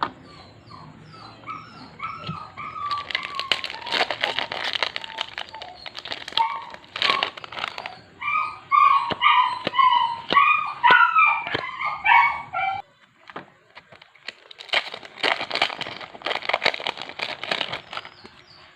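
An animal's short high-pitched calls, repeated several times a second, in a run near the start and a longer one in the middle. Between them comes the crackling rustle of foil booster-pack wrappers being torn open and handled.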